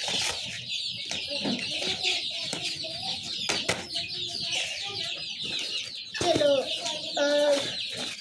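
A flock of two-month-old desi chickens peeping and chirping without pause, with lower clucking calls joining in and growing louder a little after six seconds in.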